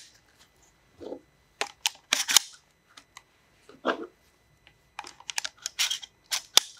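12-gauge shotshells being pushed into the magazine tube of a Tokarev TX3 pump shotgun: a series of sharp plastic-and-metal clicks and clacks as each shell snaps past the shell latch, with a few soft knocks of handling.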